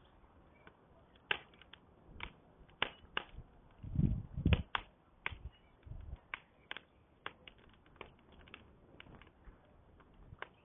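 Wood campfire crackling: irregular sharp pops and snaps of varying strength, with a couple of louder dull thumps about four seconds in.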